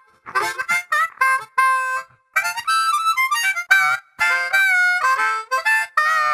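Intro music: a single instrument playing short phrases of held chords, with brief gaps between them.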